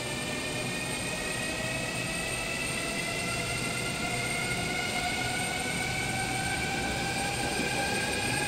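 Fuxing Hao high-speed electric train pulling away from the platform: its traction motors whine, rising slowly and evenly in pitch as it gathers speed, over a steady rumble that grows a little louder.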